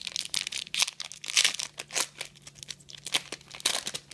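Trading-card pack wrapper being torn open and crinkled in the hands: an irregular, rapid run of sharp crackles.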